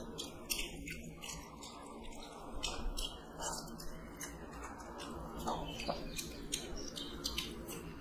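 Fingers mixing rice with curry and dal on steel plates, with chewing: many soft, scattered clicks and small wet squelches.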